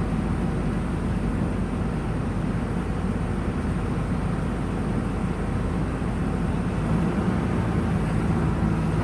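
Diesel engine of a JCB 3DX backhoe loader running steadily as a low, even drone, a little louder in the last two seconds.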